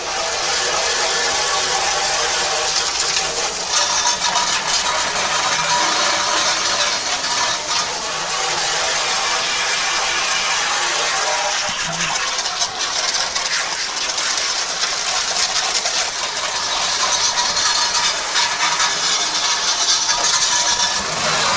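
Garden hose spraying water into the inside of a grill-smoker, a steady hiss of water spattering on the grill, rinsing out the oven cleaner and grime.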